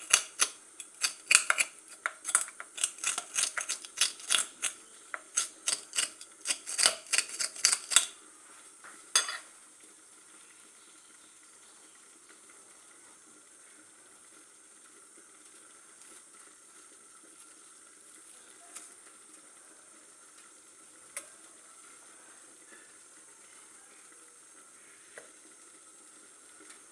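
A metal fork scraping and clicking against a carpet sweeper's brush roll, quick irregular strokes for about eight seconds and one more a second later. After that, only a faint hiss with a few single ticks.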